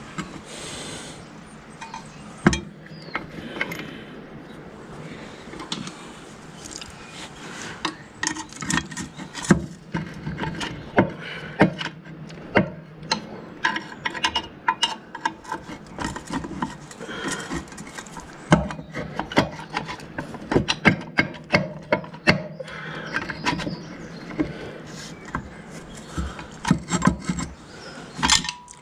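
Hand tools and steel brake-latch parts on a 1955 Fordson Major's brake linkage being worked by hand: irregular metal clinks, taps and scraping. The knocks come sparse at first, then much thicker from about a third of the way in.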